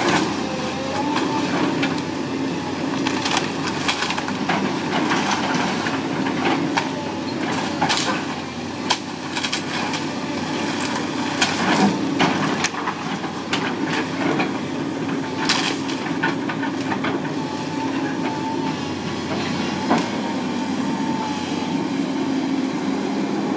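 A house being torn down: a heavy machine's engine runs steadily while wood cracks, snaps and crunches again and again as the structure is crushed.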